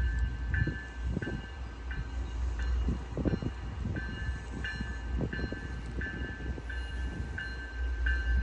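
Freight train rumbling past with irregular wheel knocks, under a bell ringing in evenly spaced strokes a little under twice a second.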